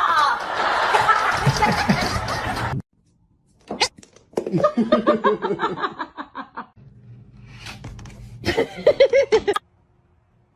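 People laughing in runs of short ha-ha pulses, broken by a sudden cut to silence about three seconds in.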